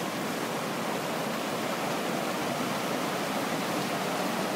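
Volcanic hot spring and steam vents at a steady, vigorous rush: boiling water churning and steam hissing out of the ground, very agitated.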